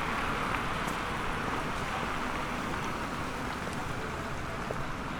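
Street ambience of a busy pedestrian street: a steady, indistinct murmur of passers-by, with a few faint clicks.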